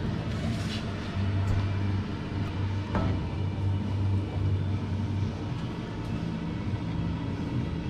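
A steady low hum runs throughout, with a few faint metallic clicks and knocks as a large G-clamp is wound up to pull two steel panels together.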